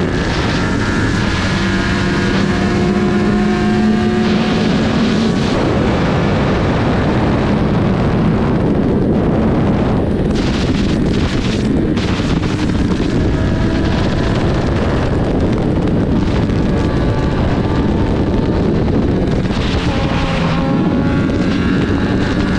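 Sport motorcycle engine running hard at road speed, its pitch climbing as it accelerates and dropping at gear changes, under heavy wind rush on the microphone.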